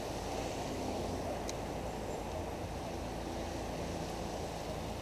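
Steady low rumble of creek water running over the riffles, with a faint steady hum underneath.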